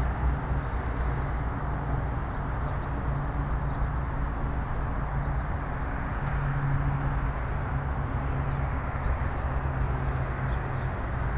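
Steady low rumble of road traffic, with a few faint high chirps here and there.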